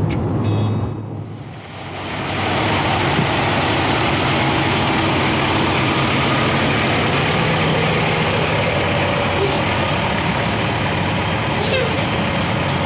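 About a second of road noise inside a moving car, then a car-hauler semi truck's diesel engine running close by, a steady loud rumble and hiss. Two short blasts of air hiss come about nine and a half and eleven and a half seconds in.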